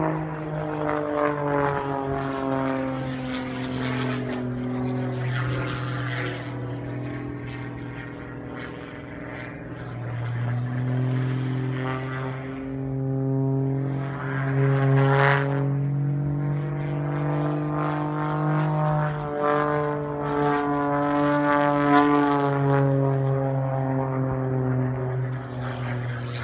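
Propeller aerobatic plane's engine droning overhead. Its pitch shifts up and down and its loudness swells and fades as the plane maneuvers, loudest a little past halfway.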